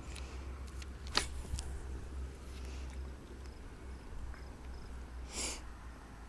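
Quiet handling of a spinning rod and reel: a sharp click about a second in and a short swish near the end, over a low rumble of wind on the microphone.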